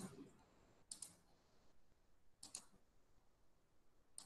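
A few sharp computer-mouse clicks, irregularly spaced about a second or more apart, over near silence.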